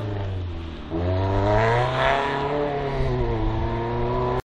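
A car engine revving hard on a slalom run. It eases off briefly just under a second in, then picks up again, rising and falling in pitch with each gear and throttle change, and stops abruptly near the end.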